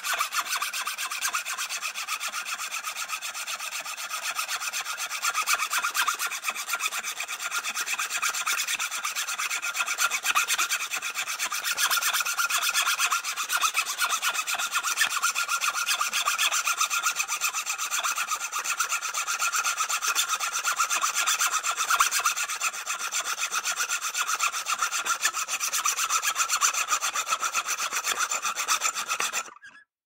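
Small hacksaw sawing steadily, one continuous run of strokes that stops shortly before the end.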